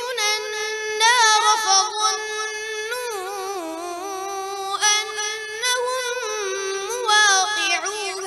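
A boy reciting the Quran from memory in melodic tajweed chant: long phrases with held, wavering notes, with a few brief breaths between them.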